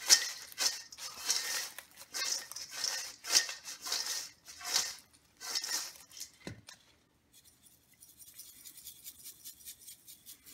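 Kettle corn tossed by hand in a stainless steel bowl: a run of dry rustling swishes for about six seconds, then a single thud as the bowl is set down on the counter, followed by faint light ticks.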